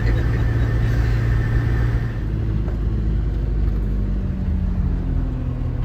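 Motorhome engine and road noise while driving, a steady low drone whose engine note changes about two seconds in.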